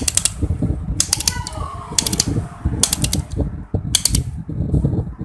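Electric fan's rotary switch being turned by hand, clicking through its detents in a quick run of sharp clicks about once a second, with rumbling handling noise underneath. The switch has been freshly lubricated so that it turns smoothly.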